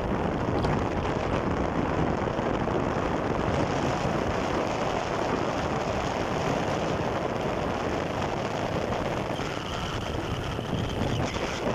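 Steady rushing wind and road noise on the microphone of a moving motorcycle, with no clear engine note.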